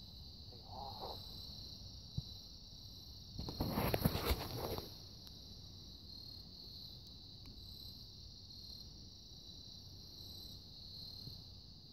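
Steady chorus of insects chirping, with a high pulsing trill. About three and a half seconds in, a brief burst of rustling and crackling cuts across it for over a second.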